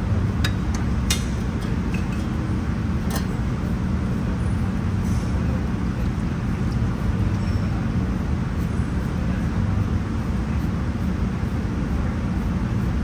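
Steady low mechanical rumble, with a few light clicks in the first few seconds.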